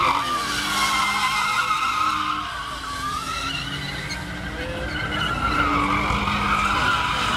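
Cars drifting in circles on asphalt, tyres screeching in a wavering squeal over engines held at high revs. The sound eases off about halfway through and builds again near the end.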